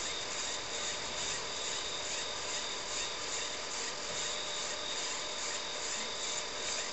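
TRS-80 Model 16B's 8-inch floppy disk drive working during a hard-disk format: a steady whirring hiss with a faint regular pulse a few times a second.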